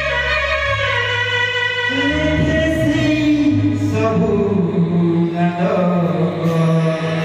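Male voice singing long, drawn-out notes into a microphone over sustained electronic keyboard chords.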